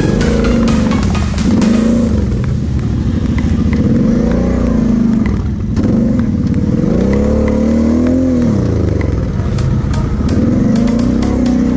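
Kawasaki KFX 700 V-Force quad's V-twin engine revving up and down in repeated swells under throttle while ridden over sandy ground, with a brief drop about halfway through. Background music plays under it.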